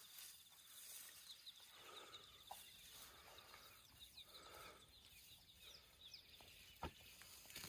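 Near silence: quiet outdoor ambience with a rapid run of faint, high ticks through the first half, a few soft rustles and a couple of small clicks.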